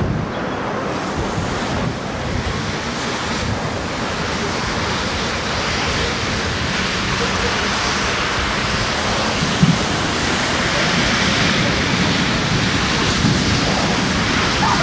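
Strong wind rushing across the camcorder's microphone, a steady noisy rush, with one brief knock about two-thirds of the way through.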